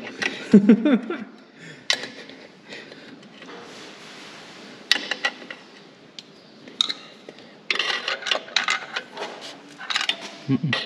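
Metal tools and clutch parts clinking, tapping and scraping as a clutch is being fitted to a truck, with a short stretch of hiss about four seconds in.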